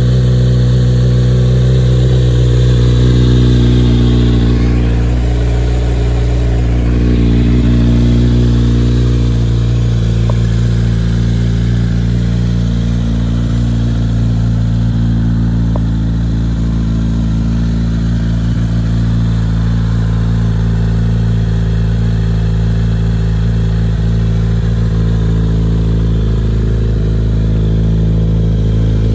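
Kawasaki Z900's 948 cc inline-four engine idling steadily through an aftermarket carbon slip-on silencer.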